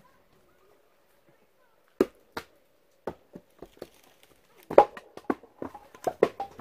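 Sharp wooden knocks and thuds of cut firewood logs being handled and stacked. Two knocks come about two seconds in, then lighter taps, then a louder quick run of knocks near the end.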